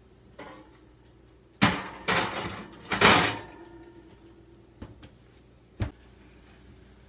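Metal oven rack clattering and clanking as a pie dish is pushed in on it: three loud clatters in about two seconds with a short metallic ring after the last, then a few light knocks.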